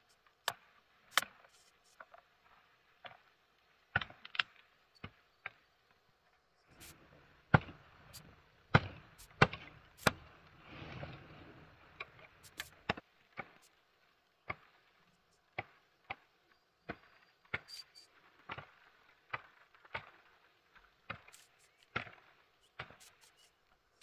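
Repeated chopping strikes of a blade, sharp separate knocks at an uneven pace of about one to two a second, with a busier stretch of rustling and knocking around the middle.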